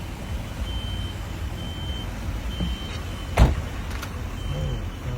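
A short high electronic beep repeating about once a second over a steady low rumble and hiss, with one sharp bang about three and a half seconds in.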